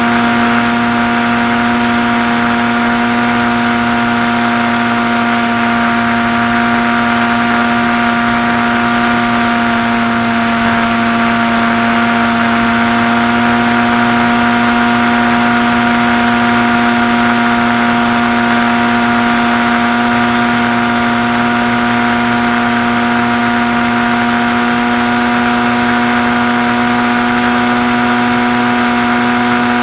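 Skywalker RC model plane's motor and propeller running at a steady speed, a constant-pitch drone under a hiss of rushing air.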